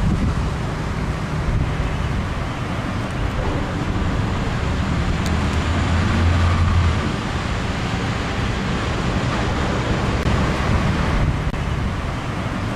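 Steady rumbling background noise with an even hiss, a little stronger in the low rumble around the middle.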